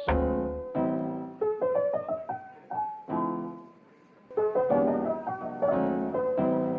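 Background piano music: a slow melody over chords, with a short pause about four seconds in.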